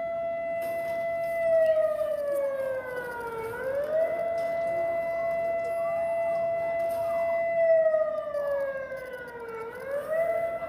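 Siren-style emergency alert alarm tone, held steady at one pitch. Twice it slides down in pitch over about two seconds, then jumps quickly back up to the steady note.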